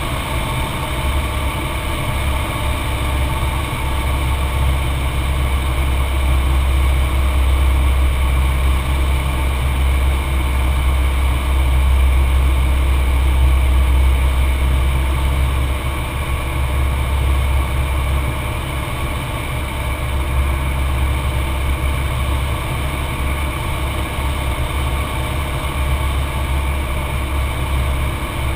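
Cessna 182's piston engine and propeller running steadily in cruise-descent, a deep continuous drone heard inside the cockpit, a little louder for a few seconds in the middle.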